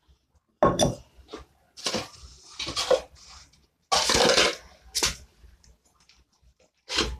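Plant pot and potting soil being handled while spring onions are pulled out for repotting. A handful of short scrapes, rustles and knocks, the longest about half a second, around four seconds in.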